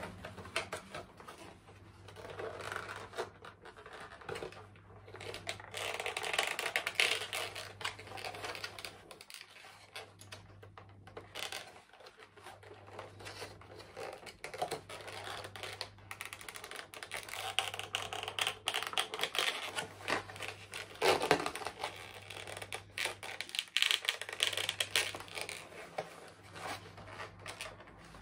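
Hands handling a model train's plastic and cardboard packaging: irregular rustling, scraping and small clicks and taps, over a faint steady low hum.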